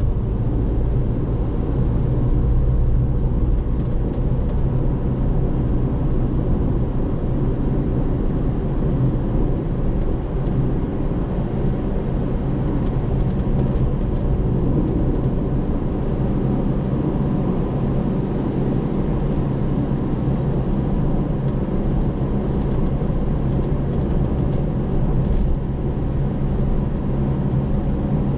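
Steady engine drone and road noise of a car cruising at a constant speed.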